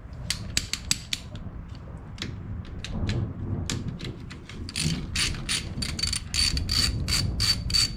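Hand ratchet wrench clicking in quick runs as the bolts of a rear brake backing plate are turned out. The clicks are sparse in the middle and come fast and steady near the end.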